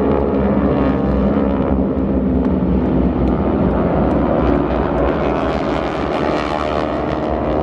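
Airplanes flying past in formation, their engines giving a loud, steady drone with many layered tones.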